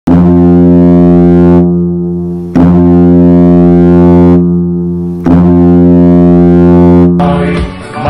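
TPS Turku's ice hockey goal horn sounding three long, low, steady blasts, each tailing off at its end. The goal song's music starts near the end.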